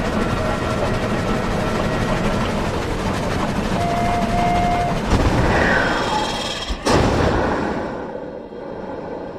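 1930s steam train running in a steady rush of noise, with a brief squealing tone about four seconds in. A single sharp bang comes near seven seconds in, then the sound fades out.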